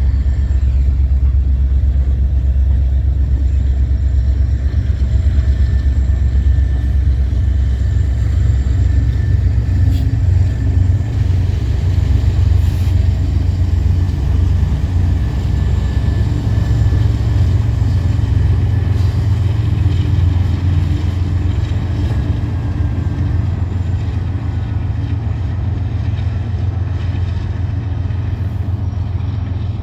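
Union Pacific diesel freight locomotives running with a deep, steady rumble as an oil train moves past, easing slightly near the end as the engines draw away.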